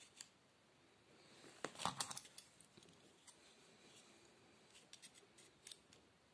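Light handling clatter: a short cluster of sharp clicks and rattles about two seconds in as an orange-handled hand tool is picked up and worked, then a few light clicks near the end as a plastic digital caliper's jaws are closed on the tool's tip.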